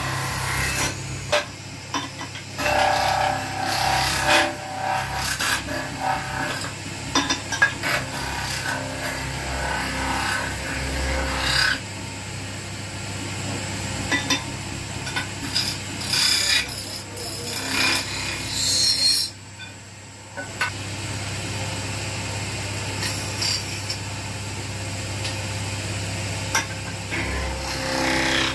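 Metal-spinning lathe running with a steady low hum while a hand-held spinning tool presses and rubs on a copper goblet blank turning on the mandrel, making irregular scraping strokes. There is a short lull about two-thirds of the way through.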